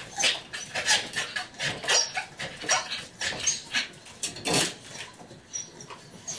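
Corgi barking in short, excited yips, about two a second and irregular, with one louder bark about four and a half seconds in.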